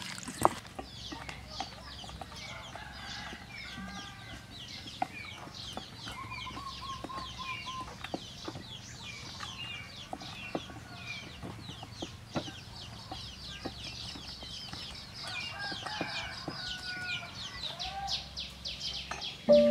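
Chickens clucking in the yard with birds chirping busily around them, and a few light knocks scattered through.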